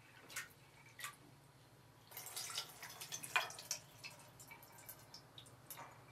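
Rinse water tipped from a bowl of grains into a metal basin. A couple of single drips come first, then about two seconds in a second and a half of splashing pouring, then scattered drips.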